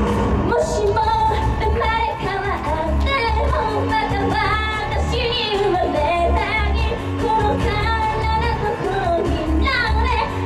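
A female vocalist singing live into a microphone over pop music with a steady bass beat; her voice comes in about half a second in.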